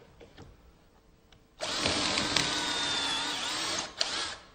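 Power drill boring a side hole into a wooden mantle shelf, its bit set to depth with a stop collar. It starts suddenly about a second and a half in, runs steadily with a high whine for about two seconds, then stops, followed by a single click.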